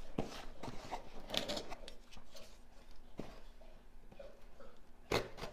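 A box and its packaging being handled and opened by hand: scattered rustles and light knocks, the loudest near the end.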